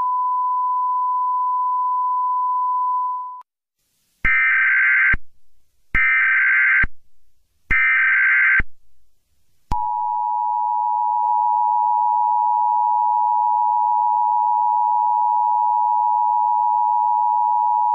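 Emergency Alert System tones: a steady single tone for about three seconds, then three short bursts of harsh buzzing SAME digital header data, then the two-tone EAS attention signal, which starts about ten seconds in and holds steady.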